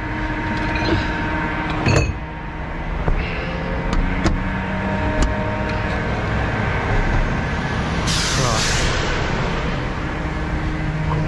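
A heavy recovery truck's diesel engine running steadily, with a sharp click about two seconds in and a short burst of air hiss about eight seconds in.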